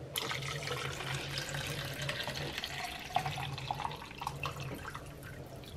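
Water pouring from a plastic pitcher into a plastic shaker bottle, a steady splashing stream.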